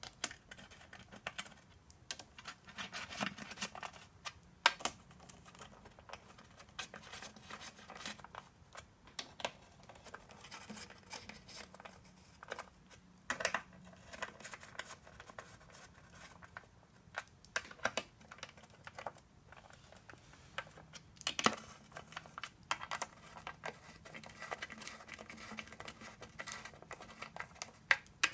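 Ratchet wrench and socket clicking in irregular runs as the bolts of a 42RE transmission's oil pan are run down and tightened, with a few single sharper clicks and light metal taps.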